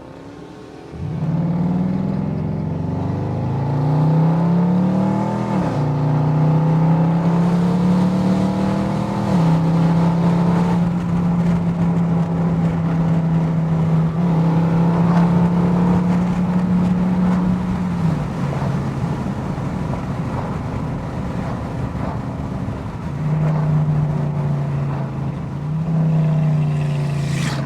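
A car's V8 engine accelerating hard through the gears: its pitch climbs and falls back at each upshift a few times, then it holds a steady drone at cruise. It eases off partway through and pulls up in pitch again near the end.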